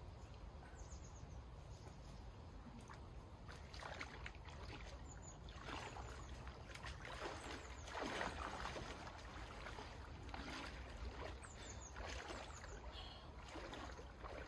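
Faint water splashing as two people wade step by step into a lake, in irregular bursts that start a few seconds in and are loudest about halfway through. A few faint bird chirps can be heard, with a steady low rumble underneath.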